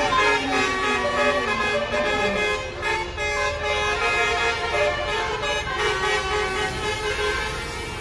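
A tour bus's multi-trumpet Basuri 'telolet' horn playing a tootling tune, several notes sounding together and changing in quick steps. Under it is the low rumble of the bus's engine as the bus pulls away.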